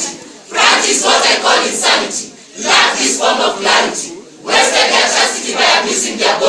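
A large group of voices reciting a poem in unison, in loud phrases of a second or two with short breaks between them.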